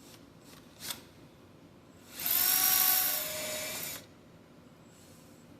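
Electric hand drill running in one burst of about two seconds, drilling out a bolt broken off flush with an engine block; its pitch and level drop a little partway through as the bit bites. A couple of light clicks come just before it.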